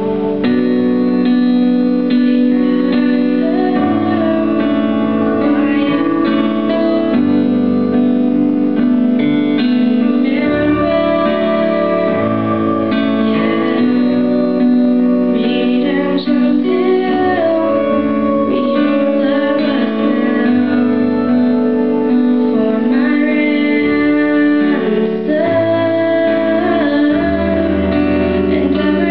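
A girl singing into a microphone over instrumental accompaniment, a continuous song with sustained chords under the melody.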